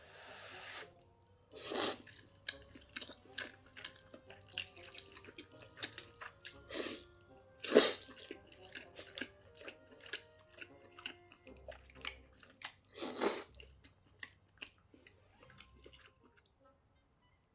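Close-miked eating sounds: chewing with many small wet mouth clicks, and a few louder noisy bursts about 2, 7, 8 and 13 seconds in.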